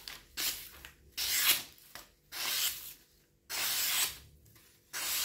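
Tsunehisa SRS13 210 mm kitchen knife slicing through a hand-held sheet of glossy leaflet paper in a sharpness test: five slicing strokes, about one a second, each a short papery hiss.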